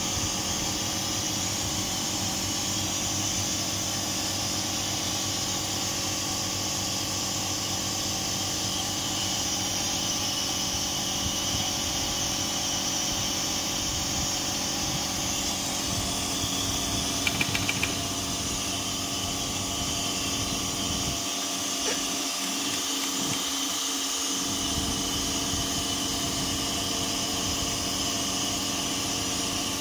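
Ardmel ultrasonic sewing machine running, a steady hum with a hiss above it, as it welds a strap to non-woven fabric without thread. A short run of quick ticks comes about halfway through.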